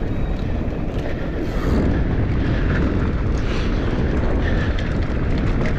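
Mountain bike descending a sandy dirt trail at speed: a steady low rumble of wind buffeting the microphone over the tyres running on loose sand and dirt.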